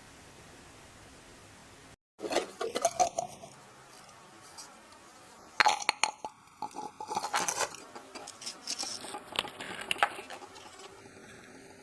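Small hard objects being handled, with irregular clinks, clicks and rattles in two bursts after an abrupt cut about two seconds in.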